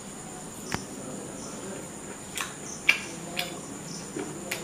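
Close-up mouth sounds of a man chewing a bite of grilled chicken kebab: about five short, sharp wet clicks and smacks spread over a few seconds, with a faint steady high-pitched tone underneath.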